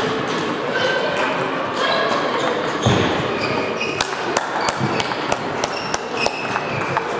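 Table tennis rally: the ball clicking off the paddles and the table at about three strikes a second, starting about four seconds in. A low thump comes shortly before the rally starts.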